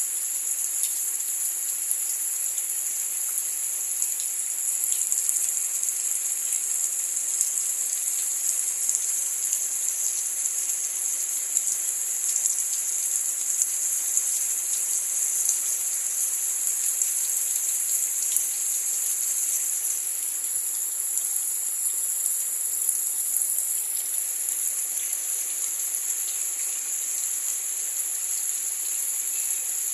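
Steady, high-pitched insect chorus, an unbroken chirring held at one pitch.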